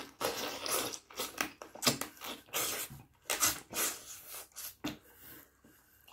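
A person eating pieces of rabbit by hand, chewing and sucking the meat off the bones in a run of short, irregular smacking mouth sounds that thin out near the end.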